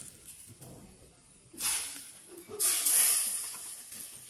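Hot tempering oil with fenugreek and turmeric, poured from an iron pan onto boiled buffalo meat, sizzles in bursts: a short one about a second and a half in and a longer, louder one from about two and a half seconds.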